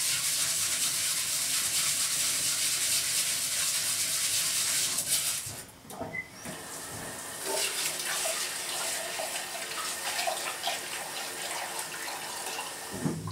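Kitchen tap running into a stainless steel bowl of rice, turned off about five and a half seconds in. After that, hands swish and rub the rice in the water for the first rinse, with small clicks of grains against the bowl.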